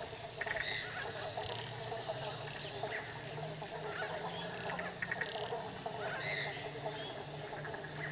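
A steady chorus of frogs, with birds giving short calls every second or two over it.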